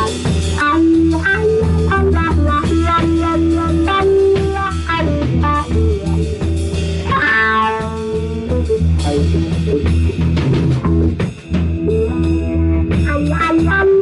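A live rock band plays an instrumental passage: electric guitar over bass guitar and a drum kit. There is a sliding run of notes about halfway through and a brief break a little past the three-quarter mark.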